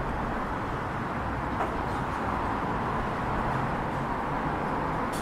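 Steady city road-traffic noise, a continuous hum of cars going by with no single vehicle standing out.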